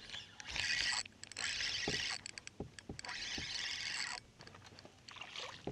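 Spinning reel being cranked in three bursts of about a second each, with light clicks between them, as a lure is worked back.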